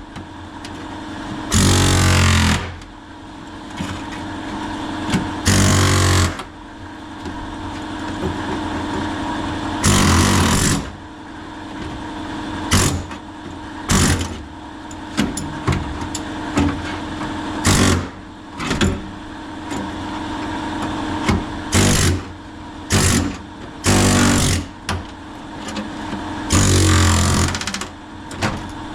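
Pneumatic air hammer (air chisel) cutting through a rusty sheet-metal floor pan in repeated bursts, several about a second long and many short ones, over an air compressor running steadily.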